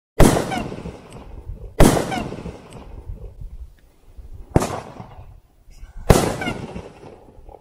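Jefferson 500-gram firework cake firing its aerial shells: four sharp bangs of bursting shells a second or more apart, each trailing off over about a second.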